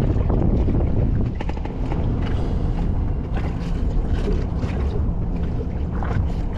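Steady low rumble of wind buffeting the microphone on a small boat on choppy water, with light crinkling and clicking as a small cardboard packet is opened by hand from about a second and a half in.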